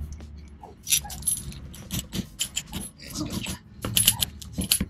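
Hammer tapping the nut on a steel concrete anchor bolt to drive it into its drilled hole: a run of sharp, irregular metallic taps and clinks.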